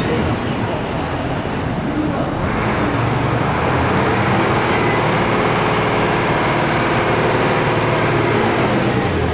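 Road traffic noise, with a steady engine hum that sets in about two and a half seconds in.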